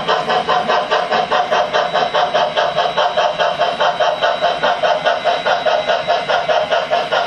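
Model steam locomotive sound from a Tsunami sound decoder played through a speaker in the oil tender of a Bachmann Consolidation: steady exhaust chuffing at about four chuffs a second, as the locomotive rolls.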